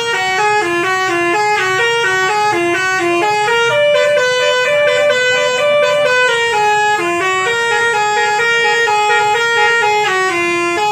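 A bus's basuri musical horn playing a tune: a loud, reedy horn tone stepping quickly from one held note to the next.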